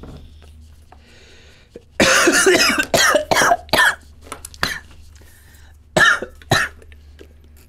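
A man coughing hard right after a hit from a vape pen. A dense run of harsh coughs starts about two seconds in and lasts about two seconds, followed by a few single coughs.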